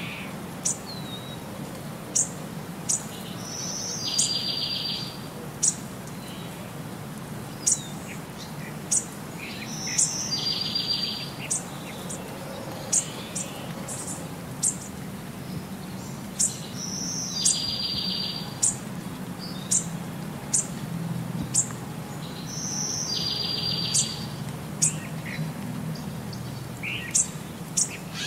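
Looped recording of birdsong: sharp high chirps and a buzzy trilled call, the same phrase repeating about every six and a half seconds over a low steady hum.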